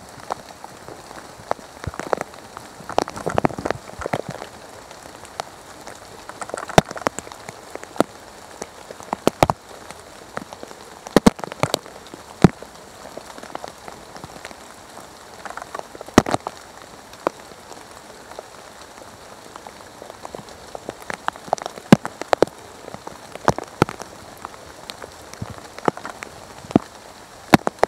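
Rain falling in a forest: a steady patter with irregular sharp drops landing on leaves.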